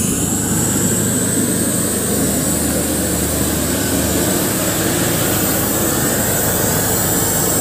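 Large outdoor PA sound system with end-fire subwoofer stacks playing at high volume: a loud, dense wall of sound with steady deep bass, which shifts about four seconds in.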